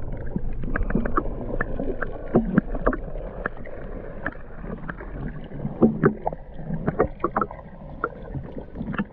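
Muffled water noise picked up by an action camera held below the surface, with many scattered clicks and knocks and a few louder thumps about six and seven seconds in.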